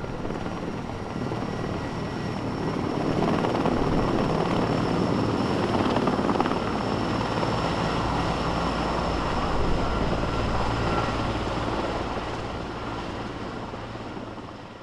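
Sikorsky S-64 Skycrane twin-turbine heavy-lift helicopter flying overhead: steady rotor noise with a high turbine whine. It grows louder over the first few seconds and fades away near the end.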